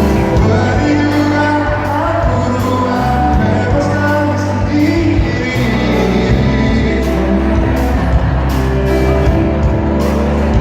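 Live pop band performance of a ballad, with a male lead voice singing over a steady bass and band accompaniment.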